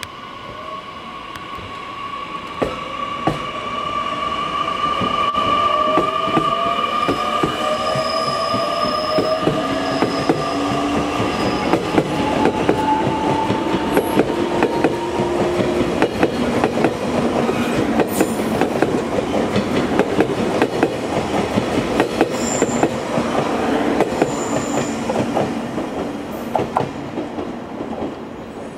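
A JR Kyushu 813 series electric multiple unit pulling away from a station. Its electric drive whines in several tones that rise steadily in pitch as it gathers speed, then the wheels click and clatter over the rail joints as the cars run past.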